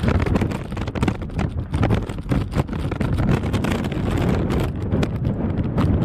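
Strong gusty wind buffeting the microphone in uneven surges, mixed with the jet engine noise of an Airbus A320-family airliner landing in a storm crosswind.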